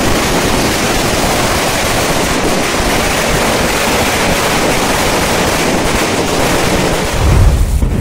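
Ground firework fountain (a flower-pot cracker) spraying sparks with a loud, steady hiss. A louder low rumble comes in near the end.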